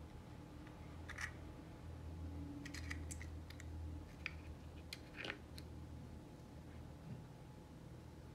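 A few light, sharp clicks and taps from small objects being handled on a wooden table, over a faint, steady low hum.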